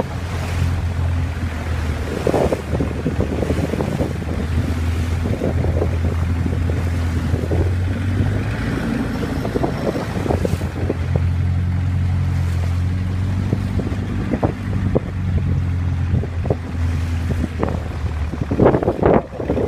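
Boat engine running at a steady pace, with wind buffeting the microphone and water splashing against the hull, the gusts and splashes growing heavier near the end.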